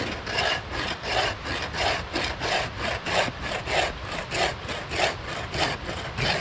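Bow saw cutting through a log in quick, even rasping strokes, about three a second, the log worked back and forth across the blade of the grounded saw; the strokes stop near the end.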